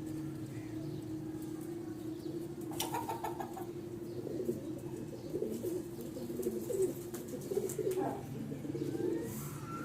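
Pigeons or doves cooing in repeated low warbling calls over a steady low hum, with a short cluster of clicks about three seconds in.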